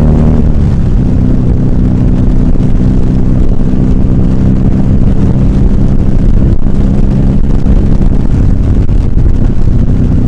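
Motorcycle engine running at a steady cruise with wind rushing past the microphone.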